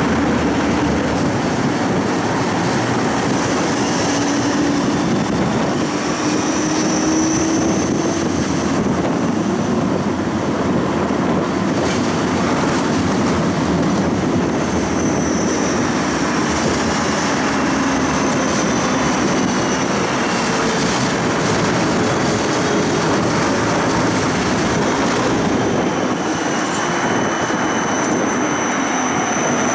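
Siemens Combino low-floor tram running, heard from inside: a steady rumble of wheels and motors with a low whine that glides up and down. A high-pitched wheel squeal comes and goes and is held through the last few seconds.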